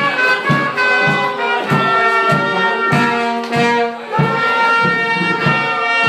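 Small oompah band playing live: clarinet, trumpet and trombone carrying a tune over a steady bass drum beat, about two strokes every second and a quarter.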